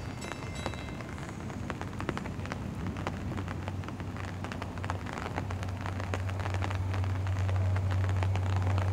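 Raindrops ticking on an umbrella, many small irregular taps. Under them, the low steady rumble of an approaching NJ Transit GP40PH-2B diesel locomotive grows louder from about five seconds in.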